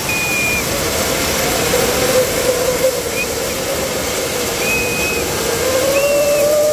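The steady hissing rush of many fountain fireworks burning on a tall kambam firework tower and along the ground. Over it run a wavering lower whistle and several short high whistles.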